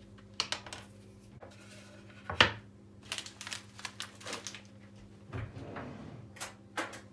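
Objects being handled: scattered light clicks and brief rustles, with one sharp knock about two and a half seconds in, over a faint steady hum.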